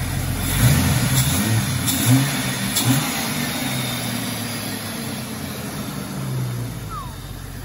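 Jeep Cherokee's 4.0-litre inline-six engine, just started, rising in revs a few times in the first three seconds and then settling to a steady idle.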